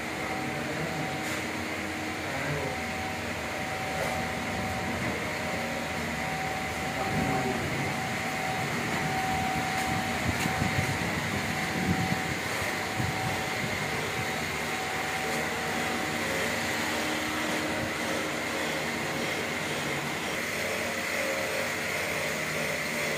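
Roll forming machine running as steel strip is drawn through its roller stands: a steady mechanical hum with a constant whine, and some irregular rattling in the middle.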